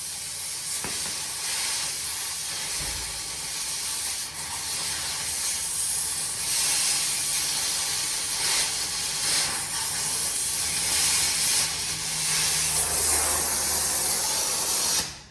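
Oxy-fuel cutting torch flame hissing steadily while it cuts through a steel exhaust clamp. The hiss stops suddenly near the end.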